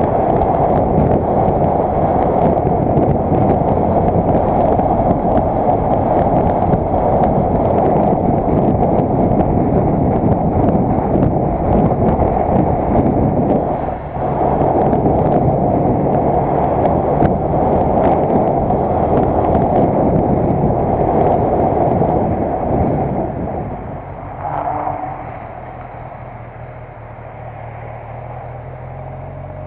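Rushing wind on the microphone of a touring motorcycle on the move, with its engine running underneath. About 23 seconds in the rush dies away as the bike slows, and near the end the engine idles steadily.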